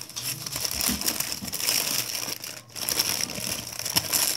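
McDonald's cheeseburger paper wrapper being unfolded and crumpled by hand: a loud, continuous crinkling that stops for a moment a little past halfway.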